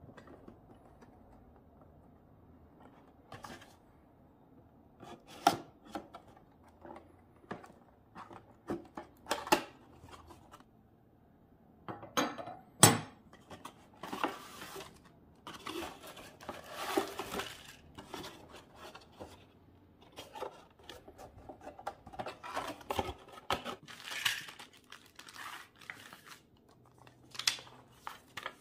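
Unboxing a plastic model kit by hand: a knife slitting the cardboard box's seal, the box lid handled and lifted off, then plastic-bagged parts sprues and paper instructions rustling and crinkling, with scattered knocks on a wooden table. The sharpest is a single clack about 13 seconds in.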